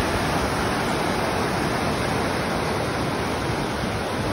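River rapids: water rushing over rock ledges, a steady, even noise.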